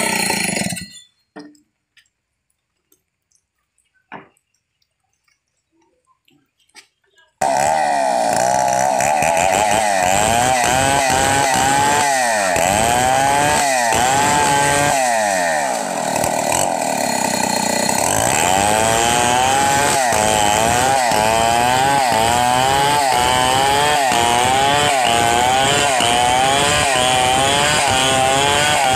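Stihl 070 two-stroke chainsaw ripping a log lengthwise into planks. The sound drops out about a second in and is nearly silent for some six seconds, then the saw comes back abruptly at full throttle, its pitch repeatedly dipping and recovering as the chain bites into the wood.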